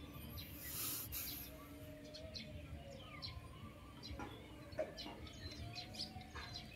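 Small birds chirping: many short, high calls, over a faint background hiss, with a brief rustle about a second in.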